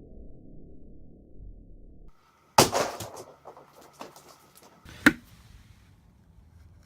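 Two sledgehammer blows on a can of corn, sharp impacts about two and a half seconds apart, the first followed by a scatter of smaller knocks. Before them a low rumble cuts off abruptly about two seconds in.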